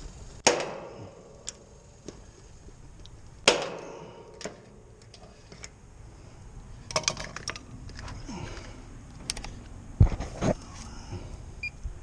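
Metal tool clicks from a screwdriver working at the terminals of an AC condenser's run capacitor. There are two sharp metallic clicks with a brief ring about half a second and three and a half seconds in, a quick run of lighter clicks around seven seconds, and a dull knock near ten seconds.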